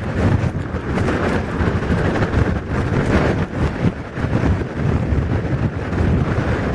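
Strong typhoon wind buffeting the microphone in uneven gusts, over a continuous rush of floodwater pouring from a floodway outlet.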